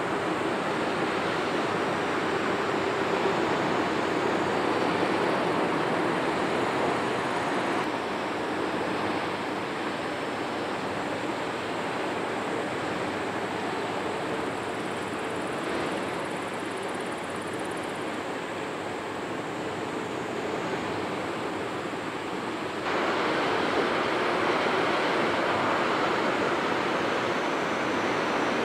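Steady outdoor rushing of wind and water, with no distinct ship engine tone. The sound shifts abruptly about eight seconds in, and again a few seconds before the end, where it grows louder with the change of shot.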